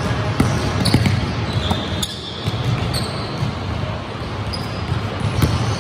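Basketball bouncing on an indoor court floor: a handful of sharp, irregular bounces over a steady low hum.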